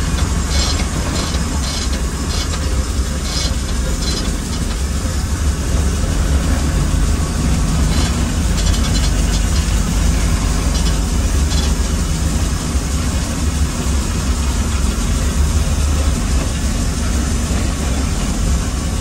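Mount Washington Cog Railway train running on the rack track, heard from inside the passenger coach as the brakeman works the hand brake wheel: a steady, heavy low rumble with sharp clicks now and then, several in the first few seconds and more around the middle.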